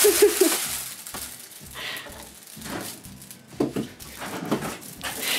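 Plastic shopping bags crinkling and rustling as they are carried and swung. A cat meows briefly at the start and again about three and a half seconds in.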